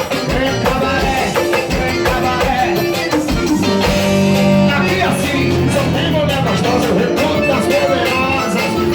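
Piseiro band music, instrumental, with a wavering lead melody over a steady beat. A sustained bass line comes in about three and a half seconds in.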